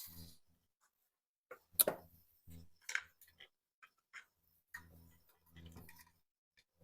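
Scattered small clicks and rustles of hands handling and joining electrical wires, with one sharper click about two seconds in and a faint low hum in short patches.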